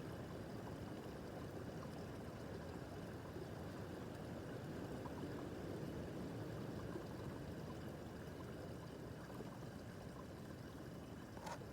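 Babbling brook: a small stream running with a steady, even rush of water. A single short, sharp click is heard near the end.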